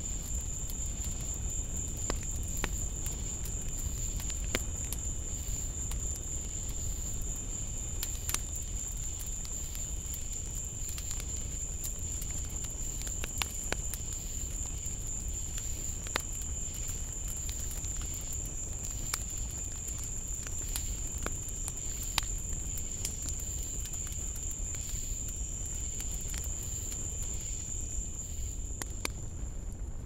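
Night insects such as crickets keep up a continuous, steady high-pitched trill. Scattered faint clicks come through it.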